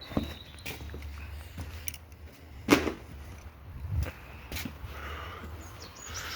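A few sharp clicks and knocks of engine parts being handled and set down, the loudest a little under halfway through, over a faint steady low hum.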